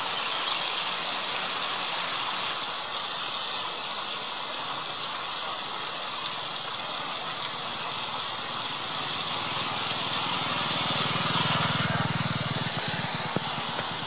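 Steady rushing of a shallow river, with a few short high chirps in the first few seconds. About eleven seconds in, a motorcycle engine swells into a low drone and then fades.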